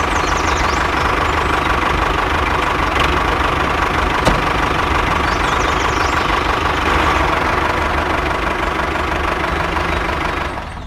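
A small engine running steadily at idle, with an even, continuous rumble.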